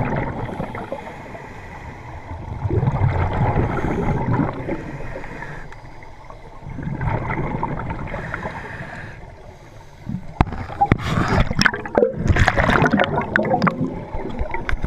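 Underwater scuba breathing through a regulator: swells of exhaled bubbles about every four to five seconds. From about two-thirds of the way through, the bubbling turns busier, with many sharp clicks and pops.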